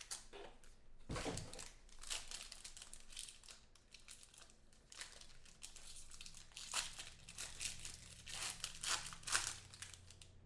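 Plastic wrapper of a trading-card pack crinkling and tearing as it is pulled open by hand, in irregular crackles that come thicker near the end. A single knock about a second in.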